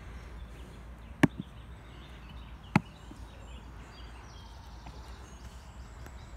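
Two snap-down clip latches on a black hard plastic carry case snapping open: two sharp clicks about a second and a half apart, the first with a small second click just after it.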